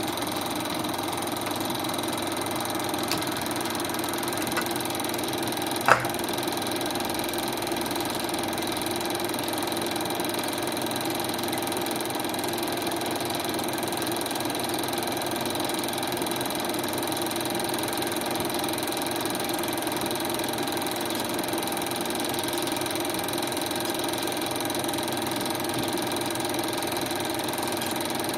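Film projector running: a steady mechanical whirr, with a sharp click about six seconds in.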